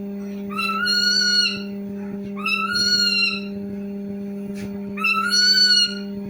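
A bird giving three drawn-out, meow-like calls about two seconds apart, each rising slightly and then falling, over a steady low hum.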